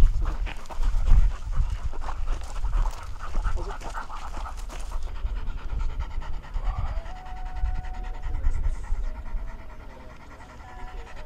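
A detection dog panting quickly and steadily, over a low rumble that is loudest in the first few seconds, with a short held tone about seven seconds in.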